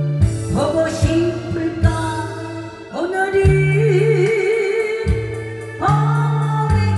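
A woman singing into a microphone in a thick, husky voice over an amplified backing track with a steady beat and bass line, with a wavering vibrato on a long held note about halfway through.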